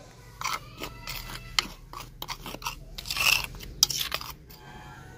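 A steel spoon stirring and scraping a dry flour and spice mix against a clay bowl, with irregular gritty scrapes and clicks that are loudest about three seconds in; near the end fingers work through the powder.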